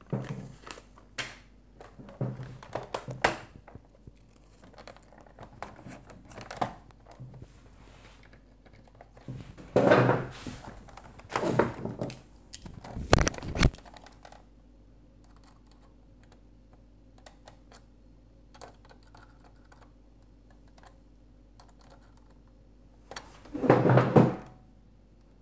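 Irregular clicks, knocks and rattles of the hard plastic hull halves of a vintage Fisher-Price Alpha Probe toy being handled and fitted together, in scattered clusters with quieter gaps between and a louder run of handling near the end.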